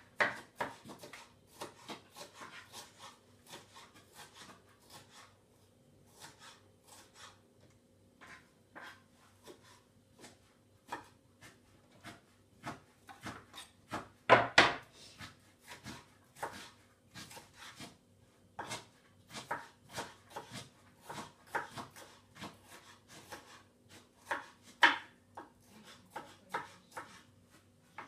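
Kitchen knife cutting bell pepper on a wooden cutting board: irregular taps of the blade on the board. About fourteen seconds in there is a louder knock as the wooden board is lifted and handled.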